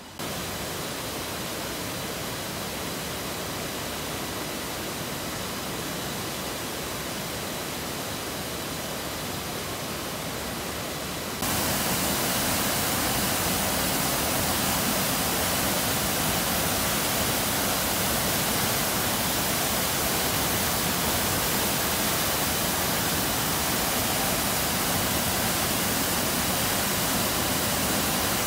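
Rushing water of a fast mountain stream, a steady even rush with no distinct events, jumping abruptly louder about eleven seconds in.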